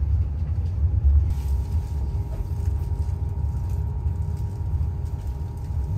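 Passenger train moving off, heard from inside the carriage: a steady low rumble of the running gear with a faint steady hum above it.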